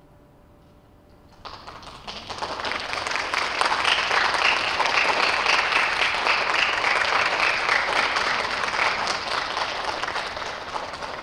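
Audience applauding: after a quiet pause the clapping starts suddenly about a second and a half in, swells, then tapers off near the end.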